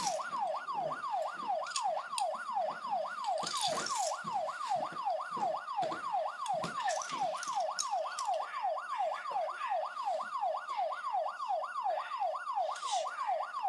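Toy siren wailing in a fast yelp, a falling electronic tone repeating about four times a second without a break, with a few faint knocks of toys being handled.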